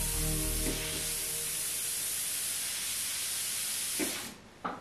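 Airbrush spraying paint with a steady air hiss. The hiss cuts off suddenly near the end, then starts again briefly.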